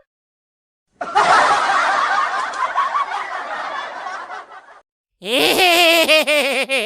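Laughter from a group of people, many voices at once, starting about a second in and fading out over about four seconds. Near the end a warbling, pitched voice-like comedy sound effect begins.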